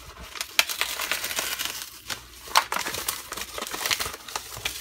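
Padded mailer envelope crinkling and rustling as it is pulled open by hand, with irregular sharp crackles throughout.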